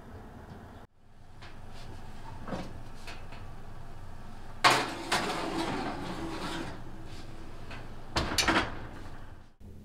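Metal roasting pan set onto an oven's wire rack with a clank, then scraping for a couple of seconds as it is slid in. Near the end, the oven door is swung shut with a thud.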